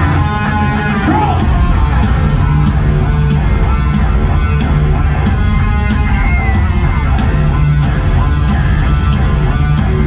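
Hard rock band playing live at full volume over an arena sound system: distorted electric guitars, bass and drums with a steady cymbal beat.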